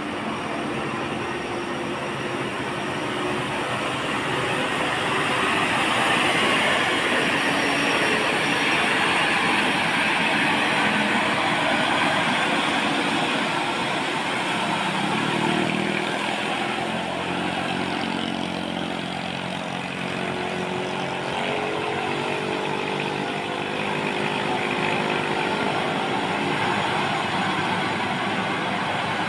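Hino truck's diesel engine running as the truck crawls around a tight hairpin bend. From about halfway on, its pitch rises and falls several times, over a steady wash of road and traffic noise.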